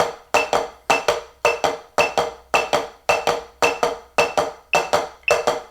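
Drumsticks on a 12-inch rubber practice pad playing unison skips at 110 bpm: both hands striking together in a short-long skip figure, two quick taps on each beat, repeating evenly.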